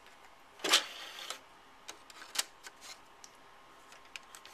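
A few light plastic clicks and taps as a CD is handled onto an open computer optical-drive tray, the loudest a clack about three-quarters of a second in, then smaller ticks scattered through the rest.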